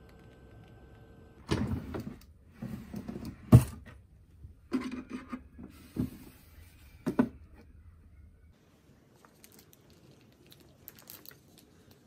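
A refrigerator's freezer drawer being opened and bagged frozen food handled inside: a run of knocks and clatters with one sharp bang about three and a half seconds in, then a few more thumps. A low hum stops about eight and a half seconds in.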